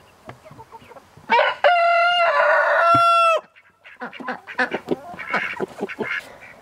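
Rooster crowing: one loud cock-a-doodle-doo about two seconds long, starting just over a second in. It is followed by a run of short, softer calls from the flock.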